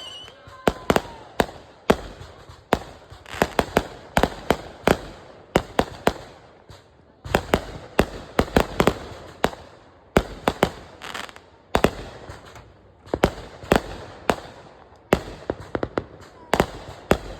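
Consumer fireworks going off: a long run of sharp bangs, some single and many in quick clusters of two to four, with short lulls between them.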